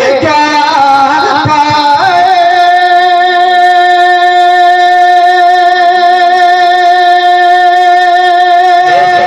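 Live naat singing through a loud PA: a short ornamented vocal run, then one long steady high note held for about seven seconds before the melody moves again near the end.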